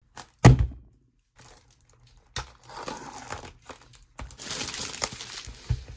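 A sharp knock about half a second in, then crinkling and tearing of the plastic wrap on a sealed trading card box as it is pulled open.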